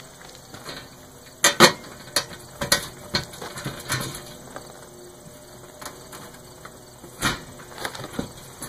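Scattered sharp clicks and knocks of bolts, washers and nuts being fitted by hand into the holes of a plastic dump cart bed, the loudest pair about one and a half seconds in.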